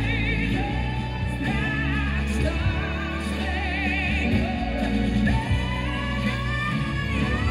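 Show music with a singer: long held notes with vibrato over sustained low accompaniment.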